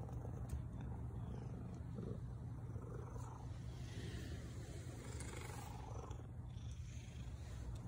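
Domestic cat purring: a steady low rumble.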